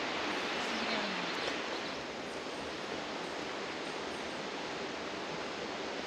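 Steady rushing hiss of a waterfall, an even wash of water noise that eases slightly about two seconds in.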